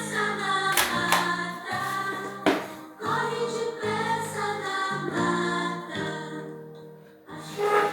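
Intro music with voices singing together, sustained chords changing about once a second, and a few sharp hits.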